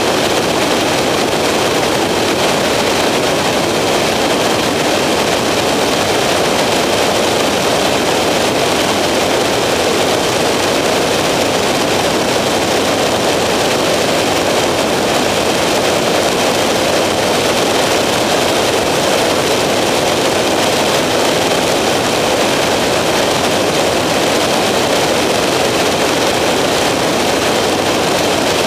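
Skyranger microlight's engine and propeller running steadily in cruise, with a constant rush of air noise over them and no change in power.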